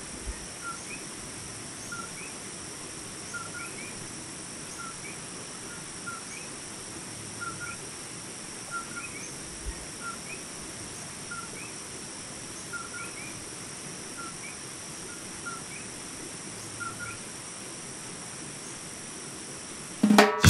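Tropical rainforest ambience: coquí frogs repeating short two-note chirps about once a second, over a steady high-pitched insect drone.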